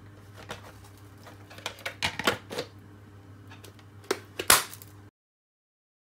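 Hard plastic clicks and knocks as the clear dust bowl of a Black+Decker Dustbuster handheld vacuum is handled and fitted onto its body. There is a cluster of clicks around two seconds in and the loudest snap about four and a half seconds in, over a faint steady hum.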